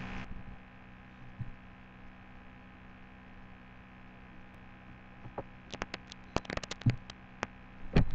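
Faint steady electrical hum picked up by a webcam microphone in a small room, then, in the last few seconds, a scattered run of sharp clicks and knocks.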